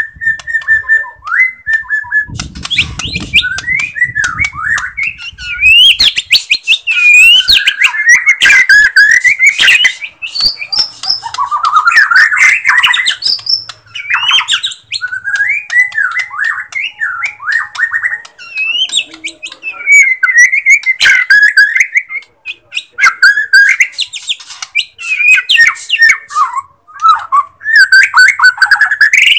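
Bornean white-rumped shama (murai batu) singing loudly: a rapid, unbroken run of varied whistles with rising and falling slurs, mixed with harsh chattering and clicking notes.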